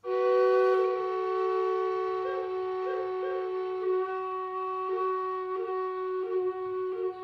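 High Spirits Native American-style wooden drone flute: both bores sound at once, a steady low drone note under a melody note just above it. The two notes come in together suddenly at the start, and the upper voice is broken by short flicked grace notes every half second or so.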